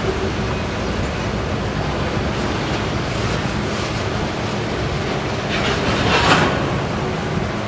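Loaded freight train of boxcars rolling past at low speed: a steady rumble of steel wheels on rail, with a brief louder burst of wheel and car noise about six seconds in.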